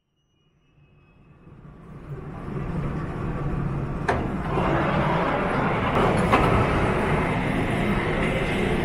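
Subway train running in the station: a steady rumble and rushing noise that fades in over the first few seconds, with sharp clicks about four and six seconds in.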